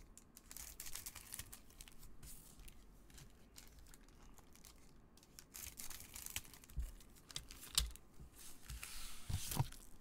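Foil trading card pack wrappers rustling and crinkling as they are handled and opened, with small clicks and a few light knocks in the second half as packs are set on the table.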